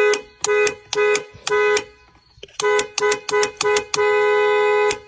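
A vehicle horn honking repeatedly: four short honks, a brief pause, four quicker honks, then one long blast of about a second.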